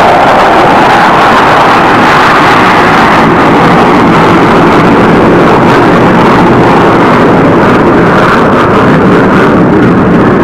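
F-15 Eagle fighter's twin jet engines at takeoff power, a loud steady roar as the jet climbs away, the top end dulling toward the end as it draws off.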